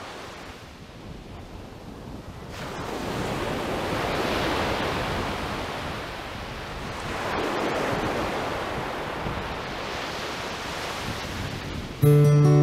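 Sea surf washing onto a sandy beach, a steady rush of noise that swells and fades with the waves. Music starts suddenly near the end.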